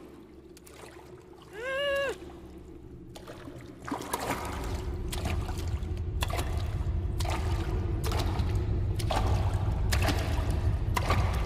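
A short, muffled, pitched cry from a gagged woman about two seconds in. From about four seconds in, feet splash through shallow standing water in uneven steps over a low, steadily building rumble.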